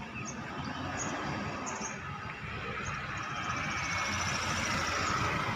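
Intercity bus and a motorcycle approaching on the road, their engine and tyre noise growing steadily louder.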